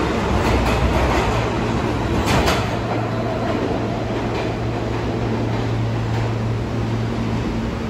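New York City subway train running, with a few clicks over the first couple of seconds, then a steady hum and rumble.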